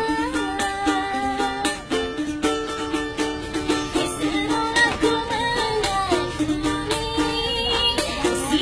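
A kentrung, a small ukulele-type Indonesian string instrument, strummed with a woman singing over it.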